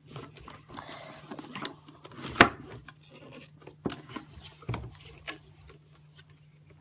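Toy packaging being handled and opened: scattered rustles and short clicks, with one sharper click about two and a half seconds in.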